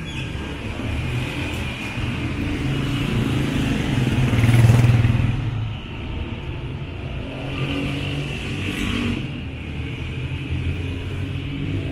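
Street traffic: motor vehicle engines running, with one vehicle passing close, loudest about halfway through before fading.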